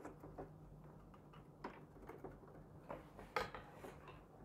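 Faint plastic clicks and knocks, about half a dozen spread apart, the loudest a little past three seconds in, as a plastic-framed filter is handled and pushed into an air purifier's plastic housing.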